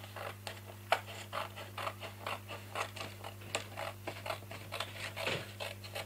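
Orange-handled scissors cutting through thin white card, a run of short snips about three a second.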